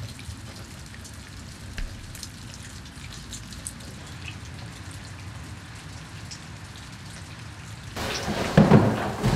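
Steady rain falling on leaves and puddles: an even hiss with scattered faint drop ticks. About eight seconds in, a louder, uneven rush of noise comes in.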